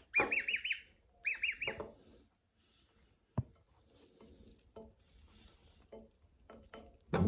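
Gosling peeping: two quick runs of high, arching peeps in the first two seconds, about five and then three. A single sharp tap follows about three seconds in, then faint scattered ticks.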